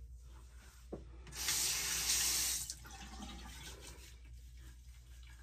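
Sink tap running briefly, water splashing for about a second and a half starting just over a second in, as water is added to the cleansing oil on the face.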